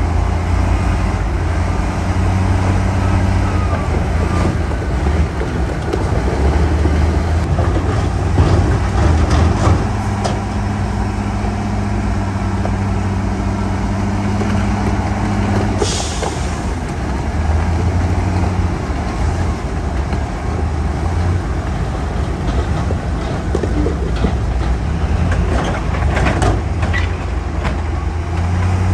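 Heavy diesel engines of dump trucks and a bulldozer running steadily, with a short hiss of air about halfway through and a few knocks near the end.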